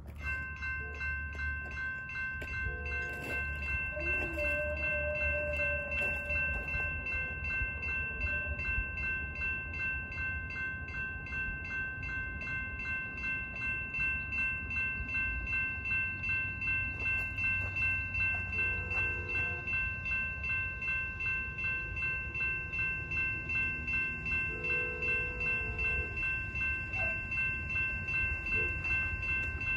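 Railroad crossing warning bell starts ringing at once and keeps up a steady, fast, ringing pulse while the gates lower. A train horn sounds faintly in several short blasts, about 3 seconds in, twice more past the middle and again near the end, as the train approaches.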